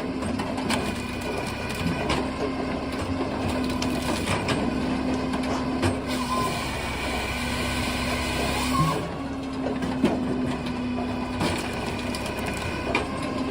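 Japa 435 firewood processor running, with a steady hum and scattered knocks and clatter as it works logs.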